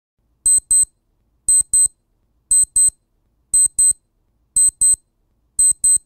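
The freedesktop sound theme's alarm-clock-elapsed alert, played from a WAV file: a high-pitched electronic double beep repeating about once a second, six times.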